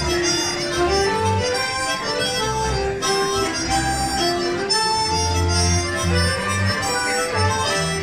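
Folk band playing a lively schottische: a melody of stepping, held notes over a bass that pulses on the beat.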